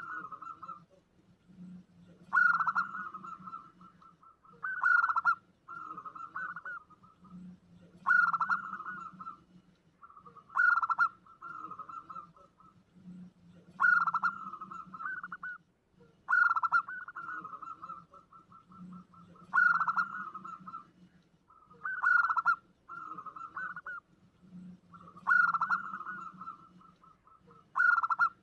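Zebra dove (perkutut) cooing, used as a lure call: a repeated phrase about every two and a half seconds, each a loud opening coo followed by a quick rippling trill.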